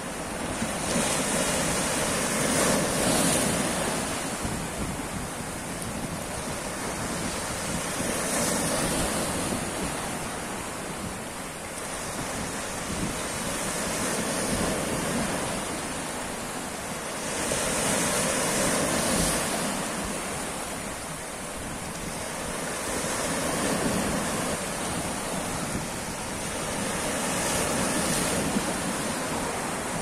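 Sea waves washing in over rocks at the foot of a stone ledge and breaking, the surf rising and falling in surges about every five seconds.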